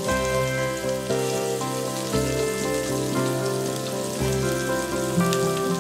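Chopped onion and garlic sizzling in hot oil in a pot, a steady frying hiss. Background music of sustained chords, changing about once a second, plays over it.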